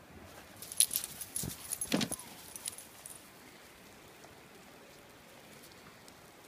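Light metallic jingling and clinking from a bull terrier puppy's harness and leash clip as two dogs scuffle in snow, with a couple of dull thumps about a second and a half and two seconds in. The jingling stops after about three seconds.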